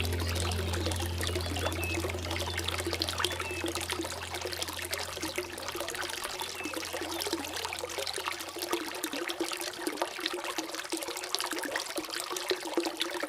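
Water trickling and splashing steadily, with many small crackling drips. A low steady music drone fades out during the first half.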